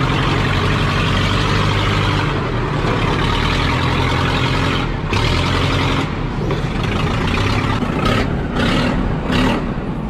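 Case 580 Construction King backhoe's engine running steadily with a low hum. A broad rushing noise over it drops out briefly several times in the last few seconds.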